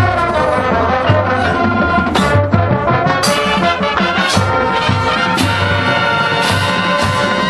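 High school marching band playing, brass carrying the melody over a steady low drum pulse, loud and full.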